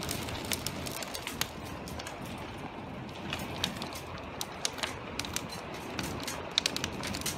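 Heavy rain: a steady hiss with frequent irregular sharp ticks of drops striking close by.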